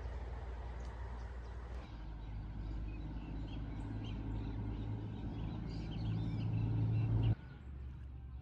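A low, steady engine hum grows louder over several seconds and cuts off abruptly about seven seconds in. Birds chirp over it.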